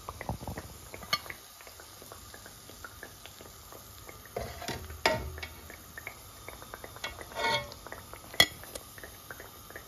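Slotted steel skimmer clinking and scraping against a steel karahi as tikiyan are lifted out of hot oil, over the steady sizzle of deep-frying. There are a few sharp metal clinks, the loudest about eight seconds in.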